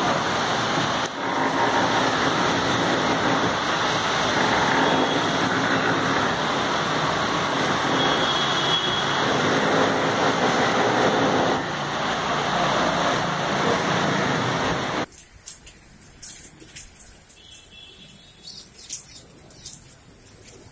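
Steady, dense hiss of rain falling on trees and the street below. About fifteen seconds in it cuts off suddenly to a much quieter scene with a few faint bird chirps.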